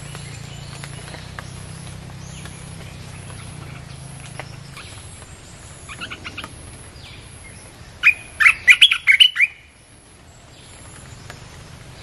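Bulbul song: a loud burst of quick, bubbly notes about eight seconds in, with a softer phrase around six seconds and scattered faint chirps before it. It is a recording played as a lure for wild bulbuls.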